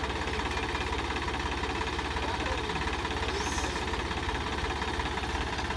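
Swaraj 969 FE tractor's diesel engine idling steadily, with an even low beat.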